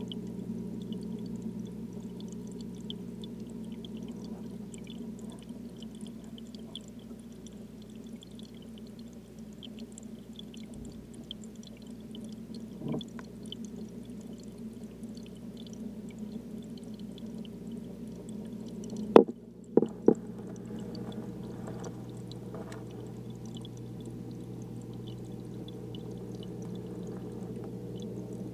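Aquarium filter running: a steady low hum mixed with the rush of flowing water. One soft knock about halfway through and two sharp, louder knocks about two-thirds of the way in.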